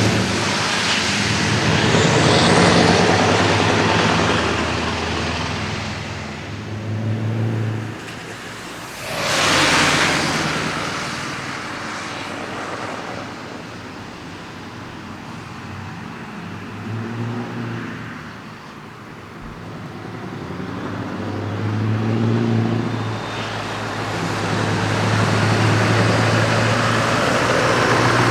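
Scania R500 V8 truck engines with open exhaust pipes running and pulling, their deep engine note swelling and fading several times as the trucks work and move. A brief loud rushing pass-by rises and falls about nine seconds in.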